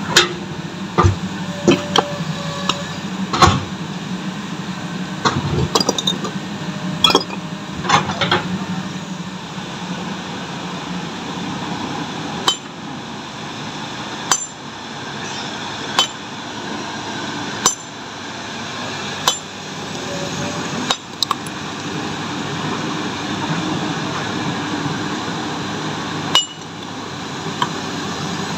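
Sledgehammer blows on a steel splitting tool set against a boulder, splitting the stone by hand: sharp metallic clinks, a cluster of quick strikes in the first several seconds, then single blows about every one and a half to two seconds.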